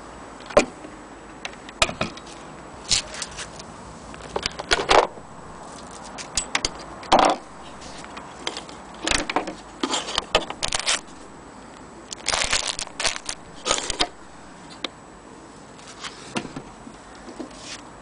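Handling noise: irregular clicks, knocks and short scraping clatters as wooden boards, a power cord and scissors are moved about on a wooden sewing table, busiest in the middle stretch.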